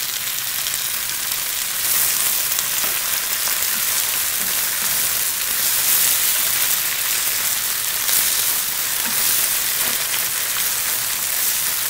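Fresh spinach and basil sizzling in a pan of hot olive oil with browned garlic and a splash of chicken stock over high heat, as the leaves are stirred. A steady, even hiss.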